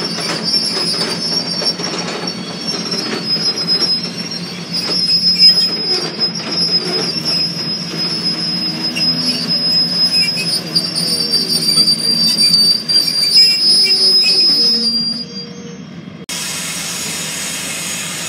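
Train wheels squealing against the rail, a high steady squeal over rumbling clatter. About 16 seconds in it fades and cuts abruptly to a steady hiss.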